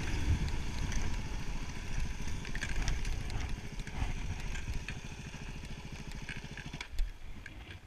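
Yamaha WR250R's single-cylinder four-stroke engine running at low revs as the motorcycle rolls slowly through snow. It gets quieter as the bike slows toward idle, with a single knock about seven seconds in.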